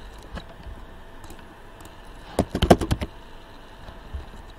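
Computer keyboard typing: a quick run of keystrokes about two and a half seconds in, with a few scattered keystrokes around it.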